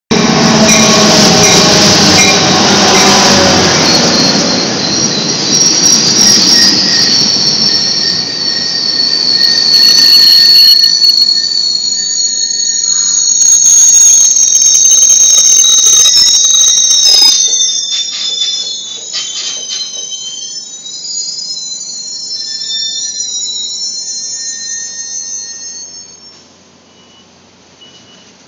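Caltrain commuter train pulling in and braking to a stop: a loud rolling rumble with several high-pitched squeals from the wheels and brakes. The rumble fades about halfway through, the squeals waver and thin out, and the sound dies away a couple of seconds before the end as the train comes to a halt.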